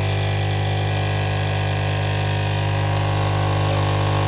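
Philips Senseo pad coffee machine's pump running as it brews a cup: a steady low buzzing hum that holds level throughout, while hot water is pushed through the coffee pad.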